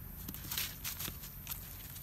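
Several short rustles and crackles in dry leaf litter, the loudest about half a second in.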